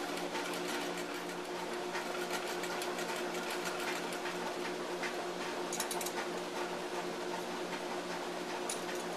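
Treadle sewing machine stitching fabric, running steadily with a fast, even ticking of the needle mechanism over a low hum. It is driven by a treadle belt made from 3/16 nylon clothesline.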